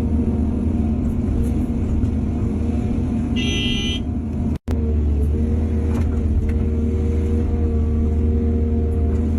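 Excavator's diesel engine running steadily under load. A short high-pitched tone sounds about three and a half seconds in, and the sound cuts out for an instant just after.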